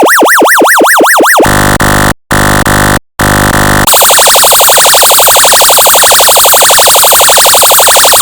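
Electronic siren tones from an audio function generator: a fast yelp sweeping up and down about four times a second, then a harsh buzzing horn tone in three blasts from about a second and a half in, then from about four seconds in a much faster warbling siren.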